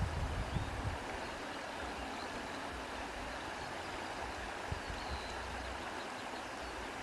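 Fabric being handled close to the microphone, a few soft bumps and rustles in the first second, then a steady background hiss with a single small click partway through.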